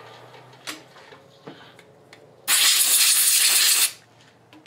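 A burst of compressed air hissing for about a second and a half, a typical blast for clearing aluminium chips off a freshly milled part, preceded by a couple of light clicks.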